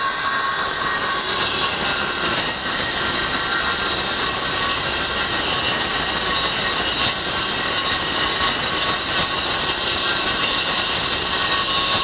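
Kobalt 24-volt 6-1/2-inch cordless circular saw running steadily under load as it cuts along a sheet of OSB.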